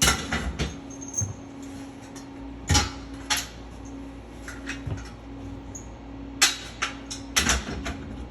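Scattered metallic clinks and knocks of hardware and hand tools being handled, a few sharp strikes several seconds apart, over a steady low hum.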